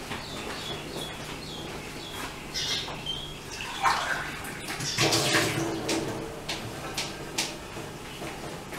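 Small birds chirping in the background, a scatter of short high chirps, with a louder rushing noise about five seconds in and a few sharp clicks after it.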